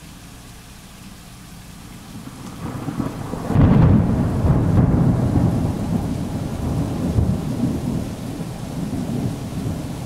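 Heavy rain, then about three seconds in a low rumble of thunder builds and breaks into a loud, long roll that goes on, rising and falling, over the rain.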